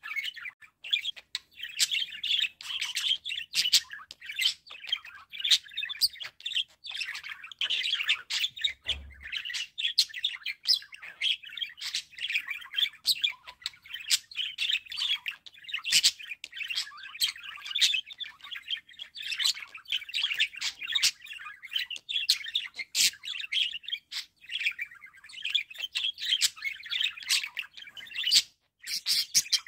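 Budgerigars chattering and warbling: a continuous stream of chirps, squeaks and sharp clicks.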